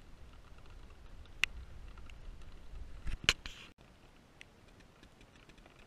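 Wind rumbling on the camera microphone, with a few sharp clicks of the camera being handled as it pans, the loudest about three seconds in. Just before four seconds the sound cuts abruptly to a quieter, even hiss.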